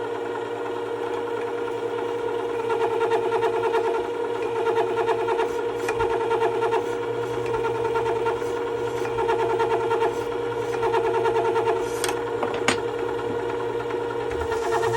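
Work Sharp WS3000 sharpener's motor running at a steady pitch, spinning its sandpaper-covered glass platen, with a wavering scraping as a steel blade is held against the abrasive. There are a few sharp clicks, around the middle and about two-thirds in.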